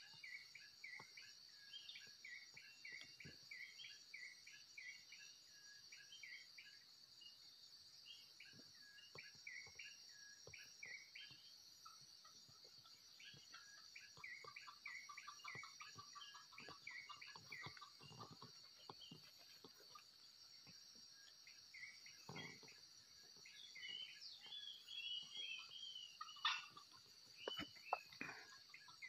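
Faint ambience of insects keeping up a steady high drone, with small birds chirping over it in short repeated notes. A few louder, sharper calls come near the end.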